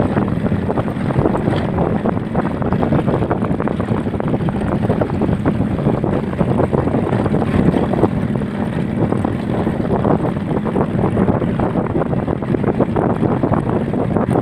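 Wind buffeting the microphone: a steady, loud, rushing rumble with no clear tone.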